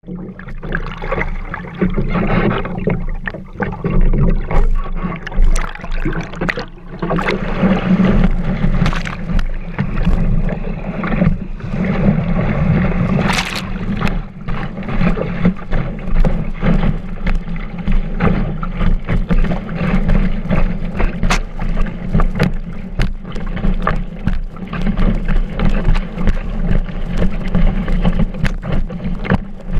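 Water rushing and slapping against a kiteboard as it skims across choppy water, heard from a camera mounted on the board's deck, with a steady low rumble and frequent sharp slaps as chop hits the board; one slap about thirteen seconds in is the loudest.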